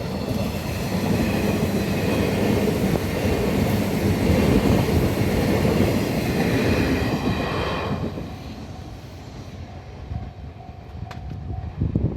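A JR 189 series electric express train passing close by at speed, its cars rumbling past. The noise fades away about eight seconds in.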